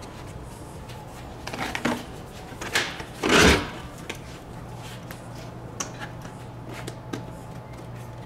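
Plastic and metal parts of a Grammer seat being handled and moved on a workbench: scattered knocks, clicks and rattles, with one louder rustling scrape lasting about half a second a little past three seconds in.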